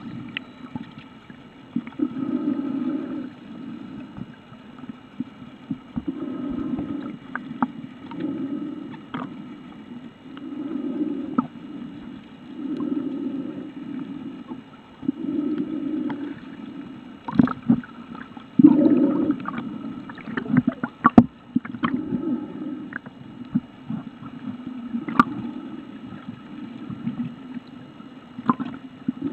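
Muffled underwater sound of water moving around a submerged camera: low swells about every two to three seconds, with scattered sharp clicks and knocks that bunch together around the middle.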